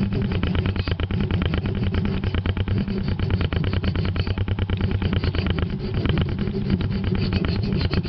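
A motor running steadily with a rapid, even pulsing and a low hum.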